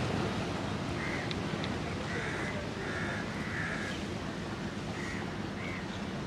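Crows cawing: about six short caws at uneven intervals, over a steady low background noise.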